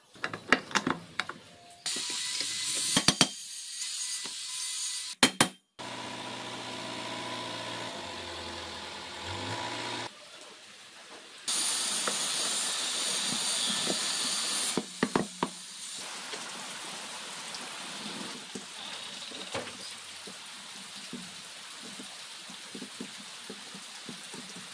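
Metal parts of a Super Cup 100cc engine's crankcase clicking and knocking as gears, shafts and the case halves are fitted together by hand, with a few sharp metallic clicks over a steady background hiss. A low hum runs for a few seconds in the middle.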